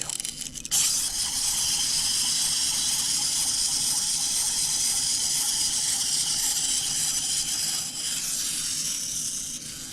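Clockwork spring motor of a small plastic wind-up pumpkin toy whirring steadily as it walks, starting suddenly about a second in and fading near the end as the spring runs down.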